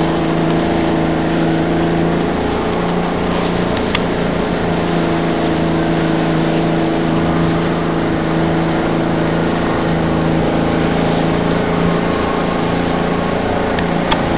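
Motorboat engine running at a steady speed as the boat travels, a constant drone over a steady hiss of wind and water.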